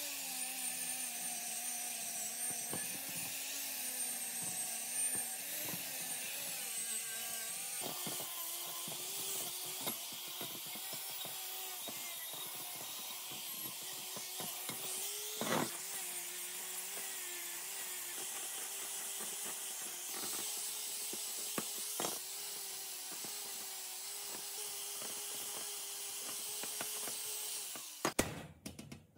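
A power tool's motor running steadily under load, a hiss riding on top of its hum. Its pitch steps up about eight seconds in and then holds, and it cuts off shortly before the end.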